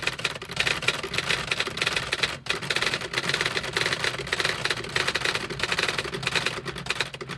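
Typewriter sound effect: rapid, continuous keystroke clacks, with a brief break about two and a half seconds in, stopping just at the end.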